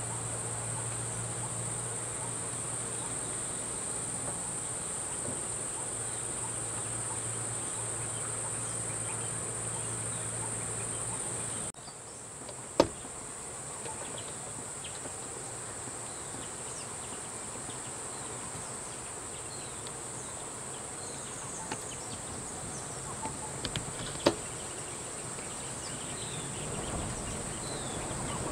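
Insects droning steadily at a high pitch. A low steady hum lies beneath for about the first twelve seconds and then stops abruptly, and two sharp clicks come later.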